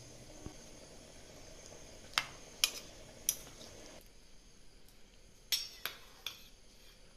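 Metal kitchenware being handled: a few light clinks and clicks, three about two to three seconds in and three more about five and a half to six seconds in.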